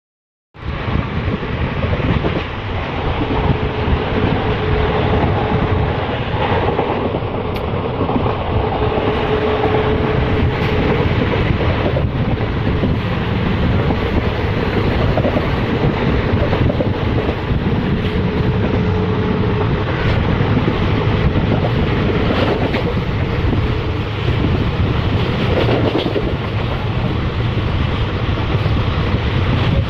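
An express train hauled by a WAP4E electric locomotive approaching, heard as a loud, steady noise that sets in suddenly near the start. A long steady horn-like tone sounds three times over it.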